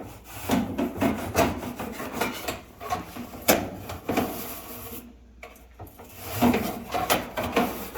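Dryer vent ducting being rubbed and scraped in irregular short strokes, pausing briefly about five seconds in.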